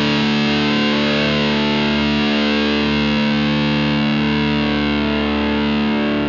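Electric guitar through a Palomar Sound Cholla op-amp fuzz pedal at maximum gain: one chord struck and left to ring, sustaining thick and distorted with hardly any fade.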